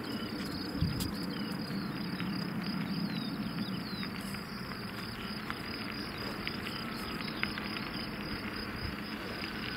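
Steady, high-pitched chirring of insects in the grass over a distant low rumble from the CFM56 jet engines of a Boeing 737-700 touching down.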